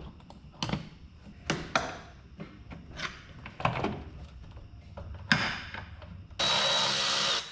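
Scattered clicks and knocks of hands and tools working loose vacuum lines and cables around a car engine, with a sharper knock about five seconds in. Near the end, a loud steady hiss lasts about a second and cuts off suddenly.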